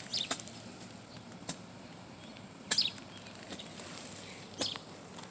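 A few brief rustles in grass, about four short strokes spread over the few seconds, as grass is moved about.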